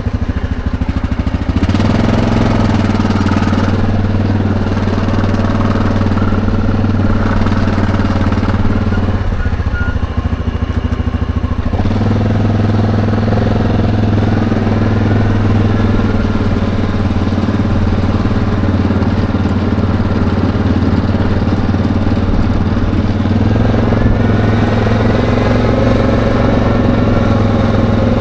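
ATV engine running while the quad is ridden, a steady drone whose pitch steps up as it pulls away about two seconds in, drops back lower for a few seconds about ten seconds in, then pulls again and rises once more near the end.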